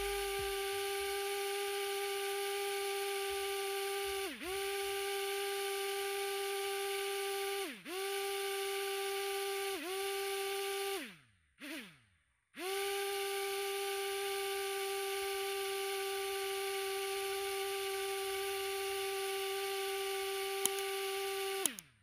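Small DC motor of a homemade remote-control boat whining at a steady high pitch. It winds down and straight back up three times, stops for about a second and a half near the middle, then runs steadily again and winds down at the end.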